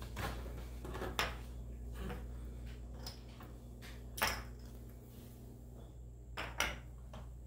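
Scattered light clicks and knocks of plastic and metal parts, with a sliding scrape, as the spring assembly of a slow-rise roller shade is drawn out of its roller tube and set down. About seven sharp ticks come over a low steady hum.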